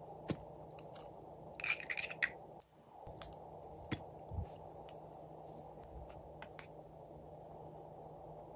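Small plastic candy-shaped containers being handled and twisted open: sharp plastic clicks and taps, with a brief cluster of rattling clicks about two seconds in, over a steady low hiss.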